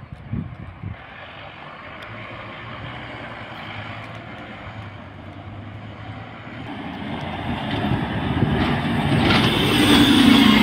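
A double-decker bus approaching and passing close by, its engine and tyres growing steadily louder to a peak near the end. A couple of low thuds come just after the start.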